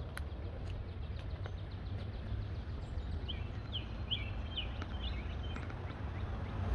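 A bird gives a quick run of about six short, high chirps around the middle, over a steady low rumble.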